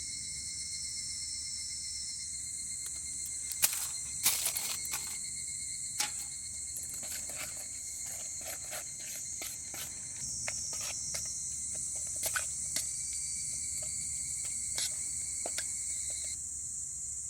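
Steady high chirring of a chorus of insects, crickets, with scattered sharp clicks and knocks over it, the loudest a few seconds in.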